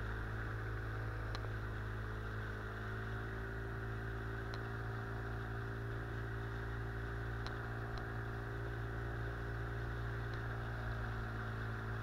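Outboard motor pushing an inflatable boat upriver, running steadily at constant throttle, with water rushing along the hull.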